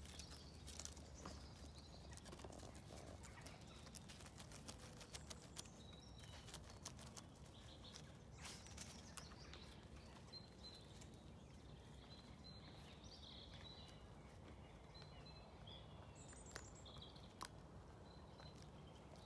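Faint clicks and crackles of puppy paws scrabbling over split firewood and loose bark, mostly in the first half. Later come a few short, high bird chirps.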